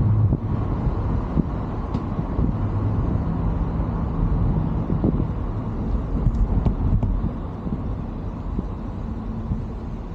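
A car driving along a road: a steady low rumble of engine and tyre noise with a faint hum, and a few light clicks.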